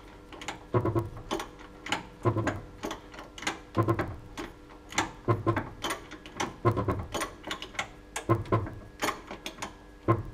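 Worn Kayaba front shock absorber on a Mercedes Sprinter 313 knocking as the van's front is raised, a low clunk with clicks about every second and a half. The noise is the sign of a failing shock absorber after only 18,000 km.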